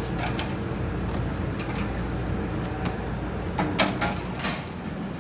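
Kitchen work noise: a few sharp clicks and knocks over a steady low hum, the loudest knock coming a little under four seconds in.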